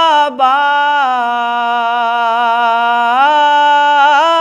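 A man singing an Urdu noha (mourning lament) unaccompanied, drawing out one long held note after a quick breath, the pitch stepping up twice near the end.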